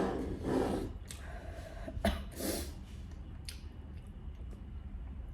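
A person sniffing and breathing hard through the nose, a few short noisy breaths in the first couple of seconds, with a sharp click about two seconds in. Her nose is running from very spicy noodles.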